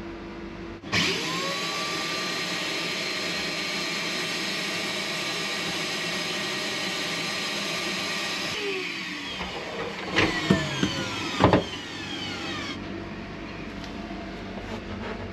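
Electric angle grinder switched on, whining quickly up to speed and running steadily for several seconds. It is then switched off and winds down with a falling whine, with a couple of sharp knocks as it stops.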